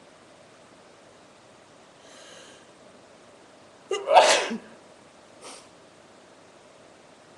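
A woman sneezing once, about four seconds in: a brief catch, then one loud burst.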